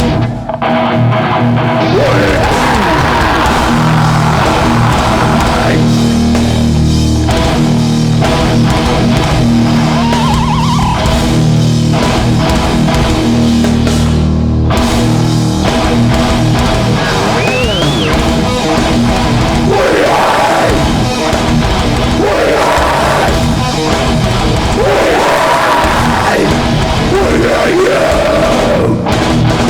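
A hardcore metal band playing live and loud: distorted electric guitars, bass and drums, with shouted vocals at times. The cymbals cut out briefly just after the start and again about halfway through.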